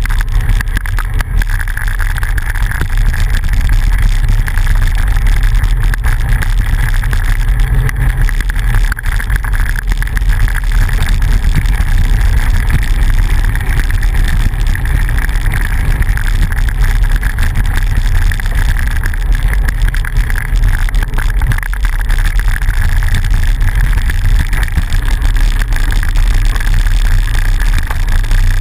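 Steady wind rumble on the microphone of a camera riding on a moving bicycle, over the noise of tyres rolling on a gravel road.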